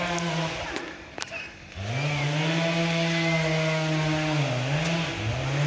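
Chainsaw revving. A short rev falls away about half a second in, then from about two seconds in the saw runs at high speed, steady apart from two brief dips in speed near the end.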